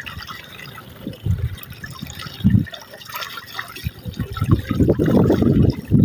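Water running from a metal pipe into a plastic bottle held under the stream, filling it, with splashing into the mud below. It gets louder over the last second or two.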